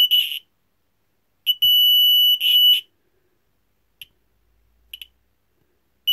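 Piezo buzzer of a Velleman MK120 infrared light-barrier alarm receiver sounding a high, steady electronic tone in on-off bursts: a burst ending just after the start, a longer one of about a second around the two-second mark, two short blips, and another burst starting at the end. The alarm is tripping in fits and starts during a beam test, which the builder puts down to stray infrared scattering around the workbench.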